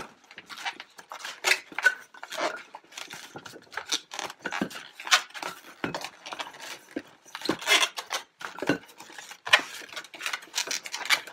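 Inflated chrome latex 260 twisting balloons squeaking and rubbing against each other and against the hands as they are crossed over and under into a four-strand braid: short, irregular squeaks.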